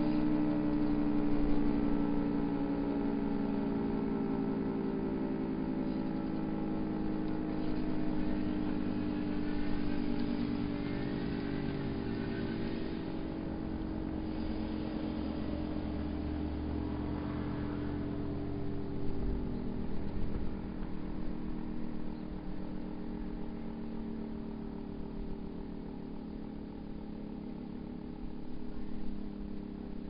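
Federal Signal 2T22 two-tone outdoor warning siren winding down at the end of its test, its two-note chord slowly sliding lower in pitch and fading as the rotors coast to a stop.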